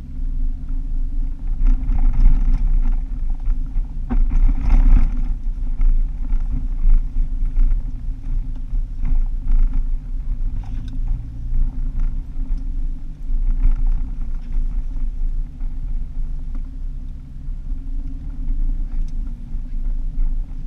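Car driving on a dirt track, heard from inside the cabin: a steady engine drone under the rumble of tyres on the unsealed road, with louder rattles about two and four seconds in.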